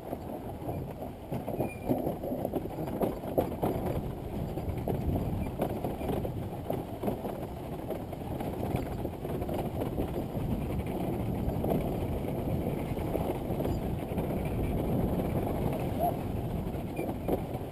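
Dirt bike riding over a rough trail: a steady mechanical rumble with frequent knocks and rattles as the bike goes over bumps.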